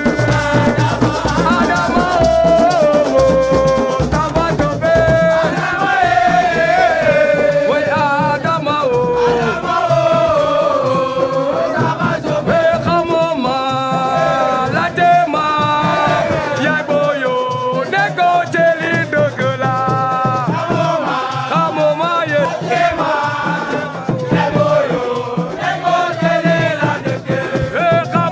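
Music with a lead voice singing over dense accompaniment, with a shaker-type rattle prominent in the percussion.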